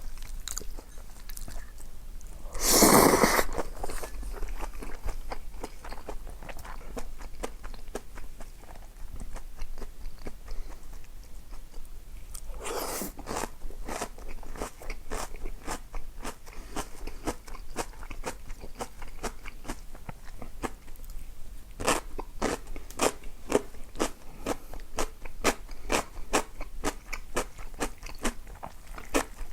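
A person chewing and crunching crisp food, such as fried breaded pork cutlet and kimchi, with many sharp crunches. Two louder short rushes of noise come a few seconds in and again about thirteen seconds in.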